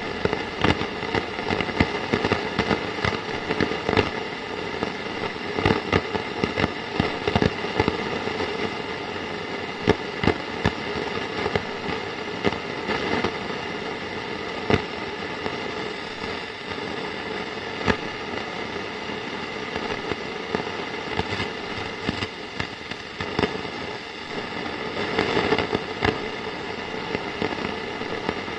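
Radio static: a steady hiss full of irregular crackles and pops, with several faint steady whistling tones running underneath.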